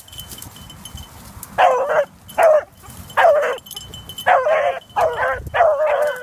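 Hunting beagles baying in short repeated calls while running a rabbit's trail through brush. The calls start about a second and a half in and come closer together toward the end.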